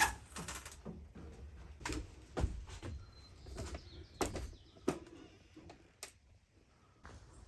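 Irregular knocks and clicks, about eight of them, spaced unevenly, with a faint brief squeak about three seconds in.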